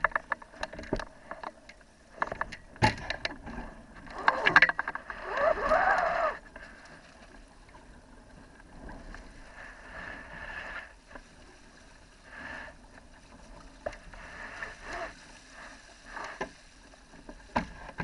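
Water splashing and lapping against a small sailing dinghy's hull, with sharp knocks from the boat. A louder stretch of knocking and a wavering tone comes about four to six seconds in, then it settles to softer splashing.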